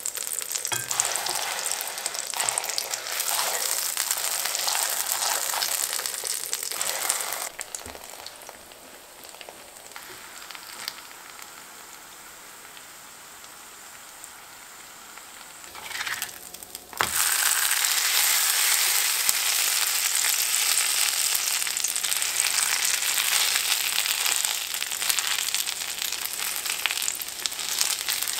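Birria crunchwrap frying in orange oil in a ceramic nonstick skillet: a steady sizzle that dies down about a quarter of the way in and comes back loud again a little past halfway.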